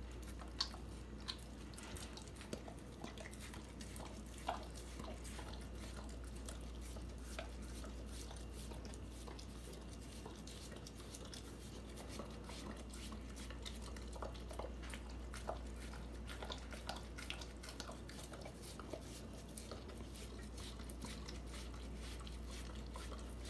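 Dog eating the flesh out of a half watermelon rind: chewing and biting, with many small scattered clicks.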